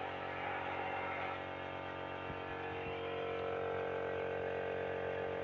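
Steady hum of a running motor, level and unchanging in pitch, with one mid tone growing stronger about halfway through.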